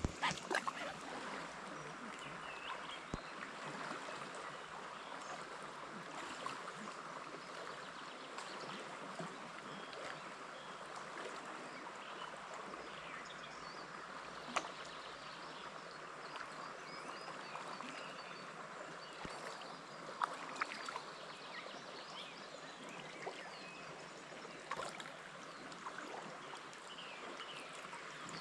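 Steady trickle and rush of running water, with occasional splashes from a double-bladed paddle working an inflatable packraft through the water, a few louder ones near the end.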